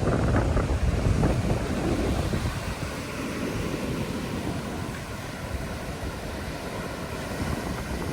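Wind buffeting the microphone over waves washing on a beach, a little stronger in the first couple of seconds.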